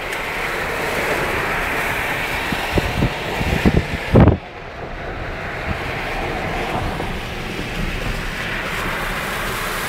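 Storm wind buffeting the microphone over a steady rush of rain and traffic noise, with gusts growing stronger until the sound cuts off suddenly a little before halfway. It then gives way to a steadier hiss of rain and road noise from inside a moving car.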